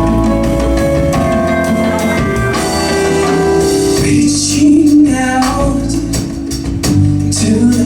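Live band playing: keyboards, drum kit, bass and hand percussion in a steady groove.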